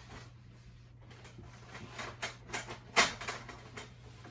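Shoe rack parts being handled and fitted together: irregular light clicks, taps and rustles that get busier after about two seconds, with one sharp knock about three seconds in, over a steady low hum.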